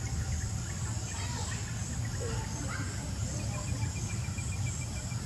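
Outdoor ambience: a steady high insect drone over a low rumble, with faint bird calls and, near the end, a quick run of about a dozen short, even chirps.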